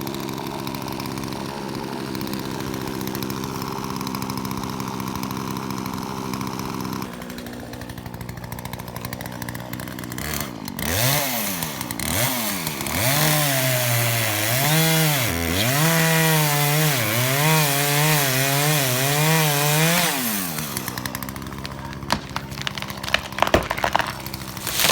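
Two-stroke chainsaw running at a steady pitch, then from about halfway through revving up and down over and over, its pitch dipping and recovering, before dying away near the end. A few sharp clicks follow.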